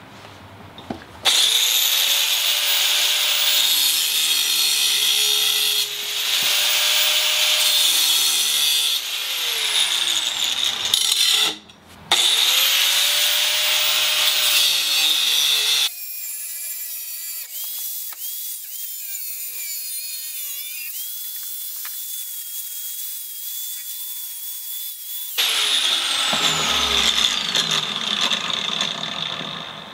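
High-speed rotary tool with an abrasive cut-off wheel cutting through 3/16-inch steel bar: loud grinding in long runs, the motor whining up to speed at each start. It stops briefly before the middle, and a quieter stretch of lighter whining follows before a final loud run.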